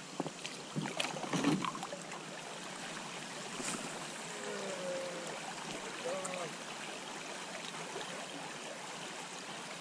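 Shallow river riffle: water running over stones around an inflatable boat, with a few sharp knocks in the first couple of seconds.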